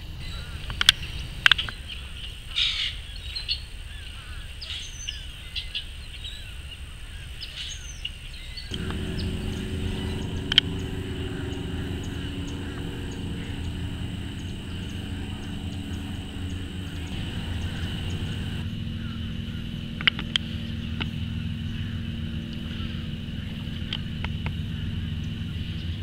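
Outdoor wetland ambience: a steady high-pitched insect drone, with a few short bird calls in the first few seconds. From about nine seconds in, after a cut, a low steady hum joins and runs on under the insects.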